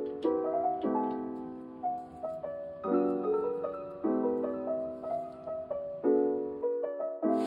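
Background piano music: soft chords struck about once a second, each dying away before the next.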